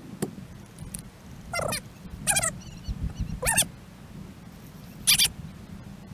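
Human voices sped up fourfold into squeaky, chipmunk-like chirps: four short, high-pitched calls that bend in pitch, over a low rumble with a few sharp clicks.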